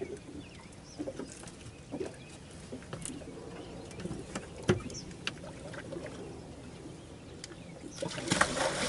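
Scattered small knocks and handling noises, with one louder knock about halfway through, then a short rush of water splashing near the end as a large catfish is released over the side.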